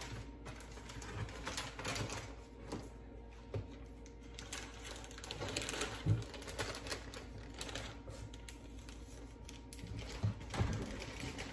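Kitchen clean-up clatter of items being handled: irregular clicks, knocks and rustling, with a louder thump about six seconds in and two more near the end, over a faint steady hum.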